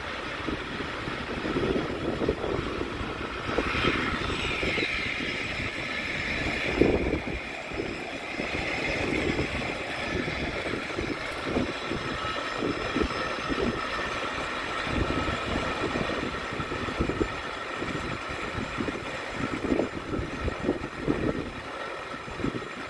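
Car of the Lynton & Lynmouth water-balanced cliff railway running on its rails: a steady rumble with irregular low buffeting, and a higher whine from about four seconds in that fades after a few seconds.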